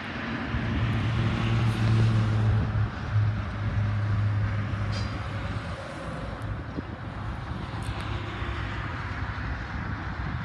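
Diesel locomotive engines running as the locomotives move slowly in reverse: a steady low drone, loudest a couple of seconds in, that fades away after about six seconds into a constant background rumble.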